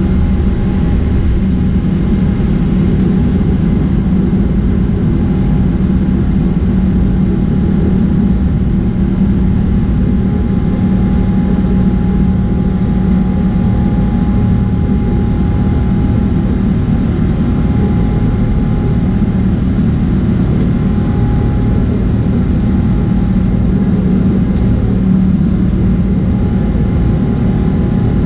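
Boeing 777-300ER's GE90-115B turbofan engines at takeoff thrust, heard from inside the cabin through liftoff and initial climb. It is a steady, even noise, strongest low down, with a faint constant whine above it.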